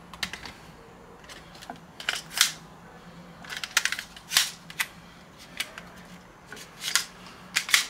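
Hard plastic clicks and clacks, a dozen or so irregular knocks, as an airsoft pistol magwell is handled and pushed against a pistol grip to test the fit.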